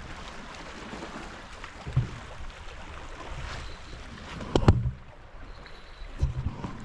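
Wind buffeting the microphone in uneven gusts, with a sharp knock about two-thirds of the way through.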